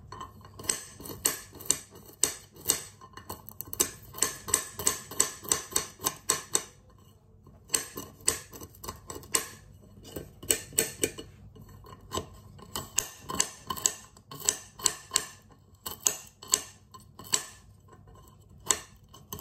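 Walnut kernels being chopped on a cutting board: runs of sharp taps, about three or four a second, broken by short pauses.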